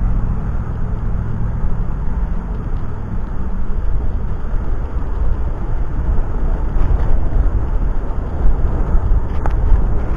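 Wind buffeting the microphone of an action camera mounted on a moving bicycle: a steady low rumble that rises and falls unevenly in loudness.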